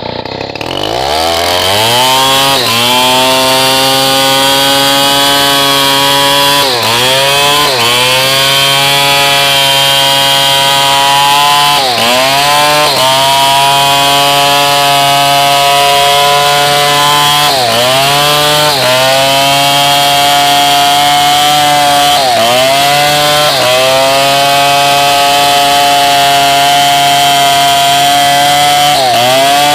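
Stihl 070 two-stroke chainsaw revving up, then running at high speed while cutting hardwood. Its pitch briefly sags and recovers about six times, every four to six seconds.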